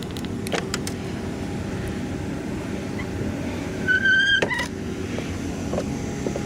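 A truck running steadily, with engine and road rumble, a few light clicks, and a brief high squeak followed by a knock about four seconds in.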